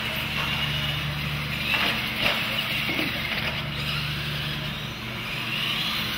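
Electric motors and gearboxes of radio-controlled monster trucks whining as they race across a concrete floor, the whine rising and falling with the throttle. A couple of knocks about two seconds in, as the trucks bounce over the ramps.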